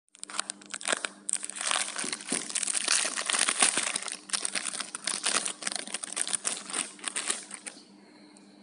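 Thin clear plastic wrapping crinkling and crackling in quick, irregular bursts as it is handled and pulled off a plastic cushion compact case. It dies away shortly before the end.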